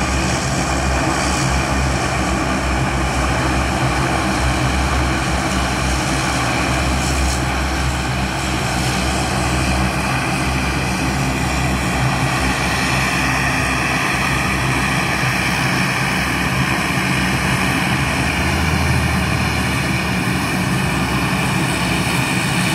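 A Lockheed C-130 Hercules's four turboprop engines running steadily as it taxis: an even propeller drone with a low hum.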